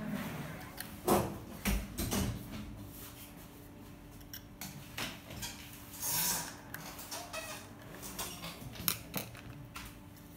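Scattered clicks, taps and light knocks of a 2.5-inch SSD in its mounting bracket being handled and fitted back into a laptop's drive bay, with a brief rustle about six seconds in and a faint steady hum underneath.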